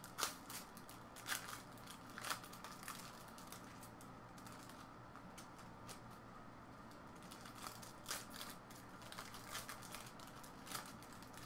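Trading card packs being handled and torn open by hand: scattered sharp crinkles and tears of the pack wrappers, the loudest a few snaps in the first two seconds and another about eight seconds in.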